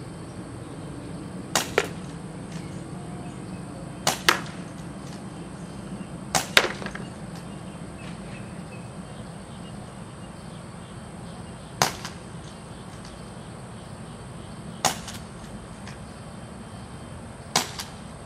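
UHC green gas airsoft revolver firing single shots: six sharp pops a few seconds apart, several followed a fraction of a second later by a second click.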